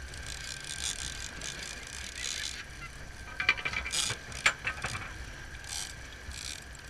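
Fishing reel ratcheting and clicking as a mahi is reeled in, with a cluster of sharp clicks between about three and five seconds in, over a steady hiss of wind and sea.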